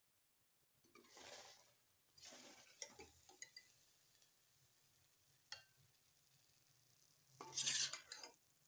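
A metal ladle scraping and clinking in a steel pot as cooked spinach and potato curry is scooped out: a few short scrapes with light clicks, the loudest near the end.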